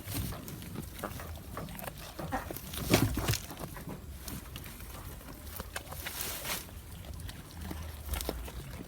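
A goat chewing crunchy food: a run of crisp crunches and clicks, the loudest about three seconds in.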